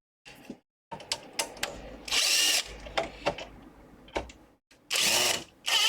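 Small electric drill running in short bursts of about half a second, about two and five seconds in and again at the very end, with light clicks between.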